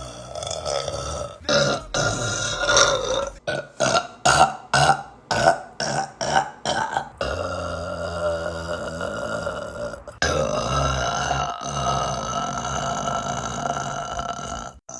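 A young woman burping over and over: two drawn-out burps, then a quick run of about eight short burps, then two long, sustained burps that each end in an abrupt cut.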